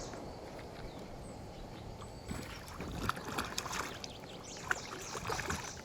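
Water splashing and sloshing in short, irregular bursts starting about two seconds in, over a steady low rumble.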